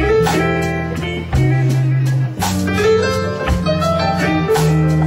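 Blues band playing an instrumental passage: keyboard over drums, with a low bass line changing note about once a second.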